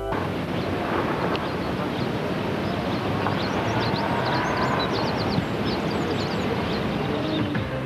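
Outdoor field recording: a steady rushing noise, typical of wind on the microphone, with a cluster of short high chirps near the middle.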